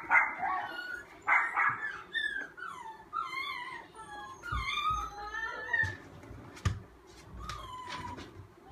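Frightened puppy whining and yelping in distress as it is cornered and leashed: a couple of sharp yelps early on, then repeated high whines that rise and fall. A few dull thumps come in the middle.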